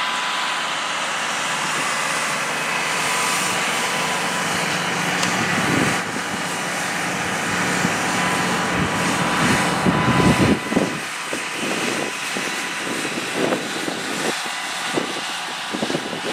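Farm tractor pulling a grain cart drives past, its diesel engine running steadily and loud. About ten seconds in the engine swells and then fades, giving way to irregular knocks and rustles.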